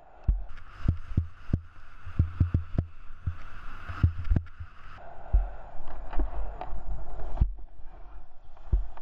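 Skis scraping and hissing over soft snow at speed, with many sharp low thumps and knocks as the skis and camera jolt over bumps. The scraping gets heavier from about five seconds in and cuts off abruptly a couple of seconds later.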